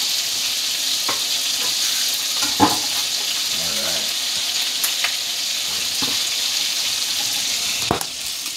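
Butter sizzling steadily in a hot frying pan, a constant high hiss, with a few sharp knocks over it, the loudest about two and a half seconds in.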